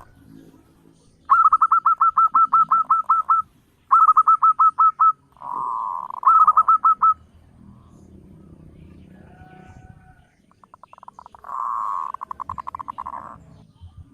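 Zebra dove (perkutut) calling: three runs of rapid staccato cooing notes, about six a second, followed near the end by a softer, buzzing rapid trill.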